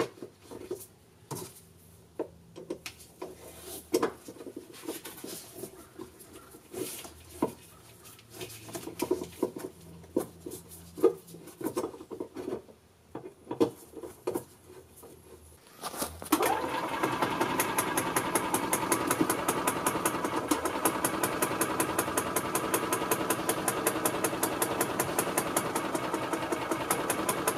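Scattered light clicks and knocks of hand work among the wiring. Then, about 16 seconds in, the 2002 Yamaha G16 golf cart's single-cylinder four-stroke gas engine starts and runs steadily with a fast, even beat.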